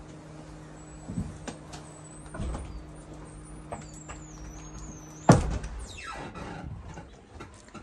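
Lippert through-the-frame hydraulic slide-out system running with a steady hum as the passenger-side main slide extends, with a few light knocks. About five seconds in the hum stops with a loud thump as the slide comes to the end of its travel, followed by a short fading rumble.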